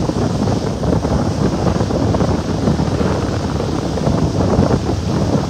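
Wind buffeting the microphone aboard a moving boat: a loud, uneven rumble with the boat's running noise and water beneath it.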